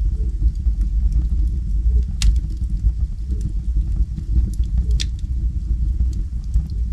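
Wood fire burning in a fireplace: a steady low rumble with scattered crackles, and two louder pops about two seconds in and about five seconds in.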